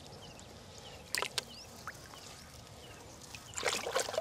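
Shallow pond water splashing and sloshing as hands work a mosquito net used as a fishing net, with a couple of sharp splashes a little after a second in and a louder stretch of splashing near the end.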